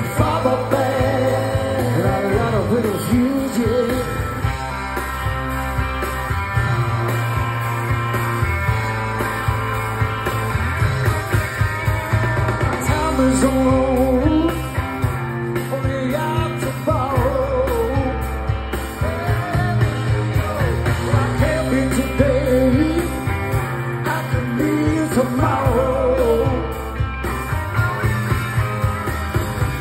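Live rock band playing: electric guitars and drums over a steady bass line.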